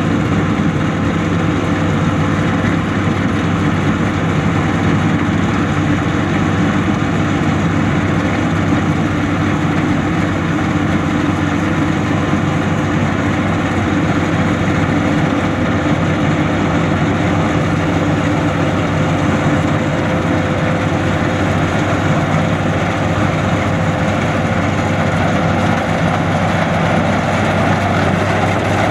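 Combine harvester running steadily with a constant engine hum, unchanging throughout.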